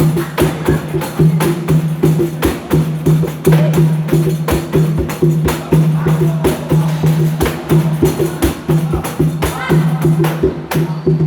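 Atabaque hand drum played with the hands in a fast, steady rhythm of several strokes a second, the drumhead sounding a sustained low tone under sharp slaps.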